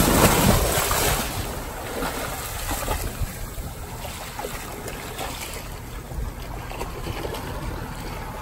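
Scuba divers in full gear rolling backward off a dive boat into the sea: a sudden loud splash, then churning water and a steady rush of sea around the boat.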